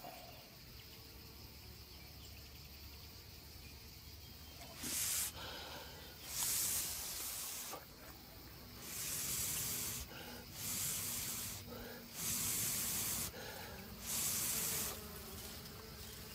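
Six short hissing puffs of breath, each about a second long with short pauses between them, starting about five seconds in: air blown on a freshly marked queen bee to dry the mark. Underneath runs a faint hum of honeybees.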